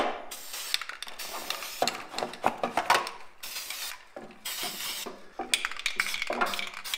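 Aerosol can of rust-stopping spray paint hissing in several short bursts as it is sprayed onto a rusty brake booster, with light clinks and knocks in between.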